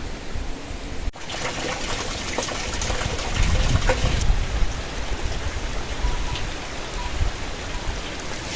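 Strong wind blowing with a steady rushing noise, gusting harder a few seconds in.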